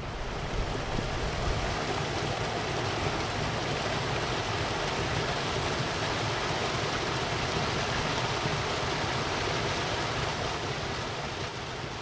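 Stream water running steadily over its bed, an even rushing hiss with no pauses.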